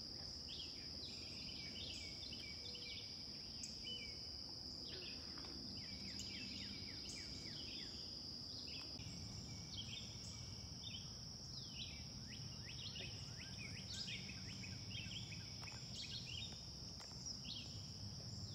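Faint outdoor nature sound: a steady high insect drone throughout, with many birds chirping over it in short, quick, falling calls.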